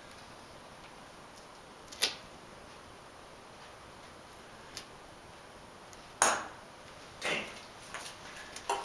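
A few sharp knocks and taps: one about two seconds in, the loudest about six seconds in with a short ringing tail, another a second later, and a quick cluster of lighter taps near the end.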